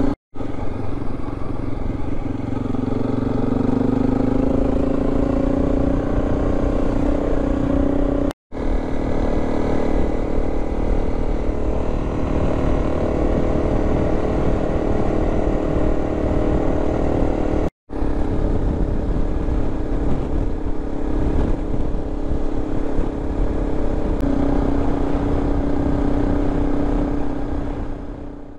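Honda CRF300 Rally's single-cylinder four-stroke engine running steadily at cruising speed on a dirt track, over tyre and road rumble. There are three brief gaps of silence, and the sound dies down near the end as the bike slows.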